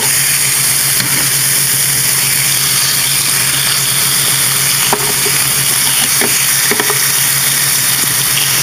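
Raw chicken breasts sizzling on the hot ribbed grill plate of an electric panini press as they are laid on with metal tongs: a steady sizzle, with a few faint clicks of the tongs around the middle.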